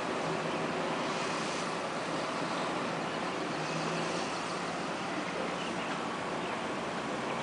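Twin turboprop engines of a Beechcraft 1900D running at the far end of the runway, heard from a distance as a steady even hiss with a faint low hum.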